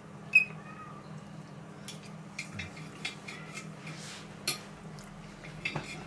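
Fork clinking and tapping against a plate during eating: a scattered series of short clinks, the loudest about half a second in.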